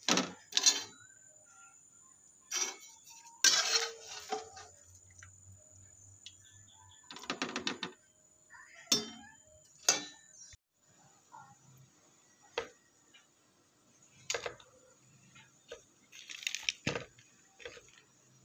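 Metal slotted skimmer clinking and scraping against a wok and bowl as boiled beans are lifted out to drain, in a series of separate knocks and clatters.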